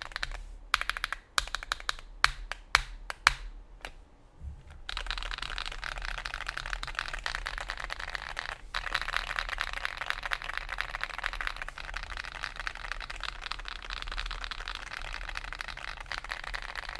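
Mechanical keyboard typing on Akko CS Vintage White switches, ultralight 35 g linear switches with a polycarbonate top and nylon bottom housing, clacky and high-pitched. It begins with a few separate keystrokes, then from about five seconds in turns to fast continuous typing.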